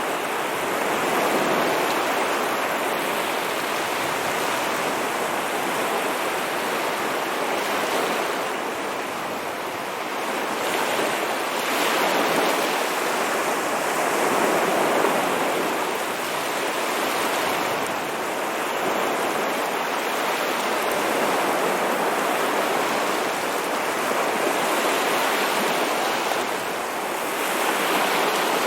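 Ocean waves washing on a shore: a continuous rushing wash that swells and eases every few seconds.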